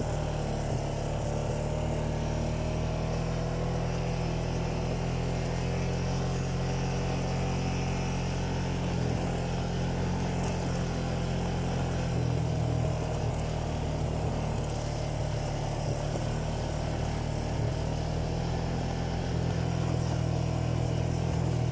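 ATV engine running steadily while the quad is ridden along a dirt trail, a low, even drone whose pitch wavers only slightly.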